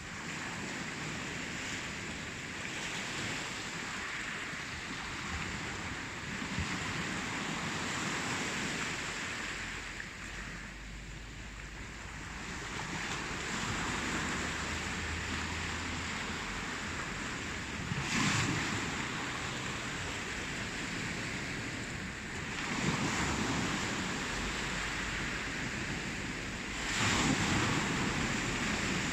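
Ocean waves washing onto a shore in a steady rush that swells and ebbs, with three louder waves breaking in the second half.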